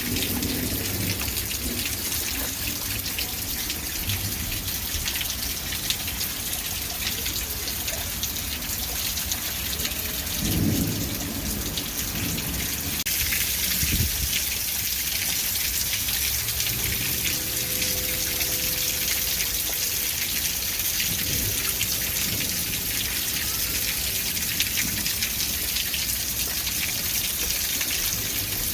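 Steady rain falling, a continuous hiss, with a brief low rumble about ten seconds in and a short low thump a few seconds later. A faint steady hum joins past the middle.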